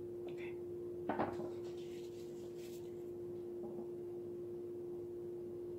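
A painted canvas being handled on a plastic-covered table: one short knock about a second in, then faint rustling. A steady hum runs underneath.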